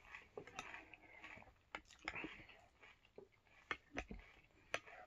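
Faint chewing of a mouthful of Oatmeal Crisp cereal, with a few sharp clicks of a metal spoon against the ceramic bowl.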